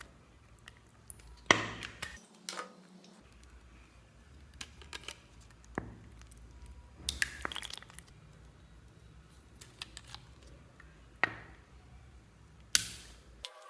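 Slime being handled and mixed, with scattered sticky clicks, pops and small knocks, some against containers. A few louder crackling pops stand out, one about a second and a half in and another near the end.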